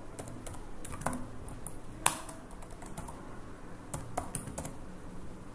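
Computer keyboard typing: irregular, scattered keystrokes, with one louder key strike about two seconds in.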